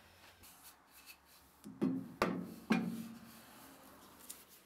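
Quiet background music: a few plucked guitar notes about two seconds in, each ringing and fading.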